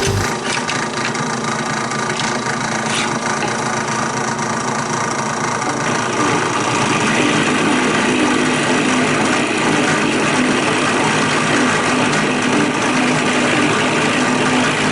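Drill press running steadily, spinning a router bit; the sound grows a little louder and brighter about six seconds in.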